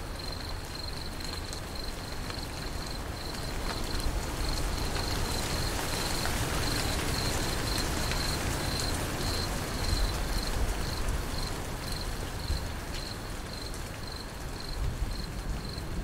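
Crickets chirping in a steady high pulsing rhythm over the even hiss of falling rain, with a low rumble underneath.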